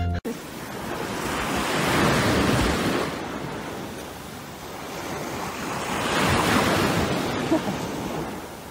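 Surf washing onto a beach, swelling twice, about two seconds in and again about six seconds in, over a low rumble of wind on the microphone.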